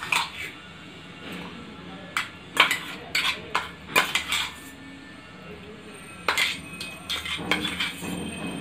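Metal spoon clinking and scraping against a kadai while almond paste is stirred into simmering milk, in irregular clusters of sharp knocks.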